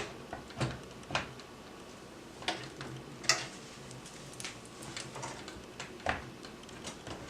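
Light clicks and knocks as a graphics card is handled and lined up over its PCIe slot inside a PC case, about ten separate taps at uneven intervals.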